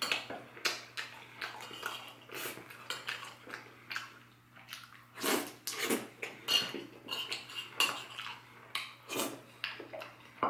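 Metal spoon clinking and scraping on a ceramic dessert plate in irregular short strokes, scooping up the last of a helping of apple pie, with the mouth sounds of eating between strokes.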